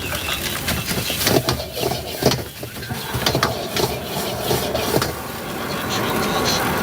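Metal cooking utensils clicking and scraping at a street-food stall, short knocks coming irregularly over a steady background hum.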